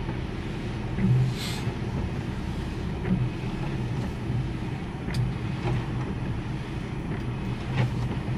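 Truck engine running as the truck creeps forward at low speed, heard from inside the cab, with a short hiss about a second and a half in and a few sharp clicks.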